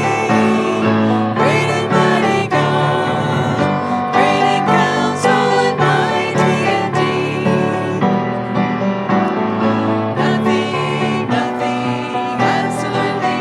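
Worship song sung by voices with piano accompaniment.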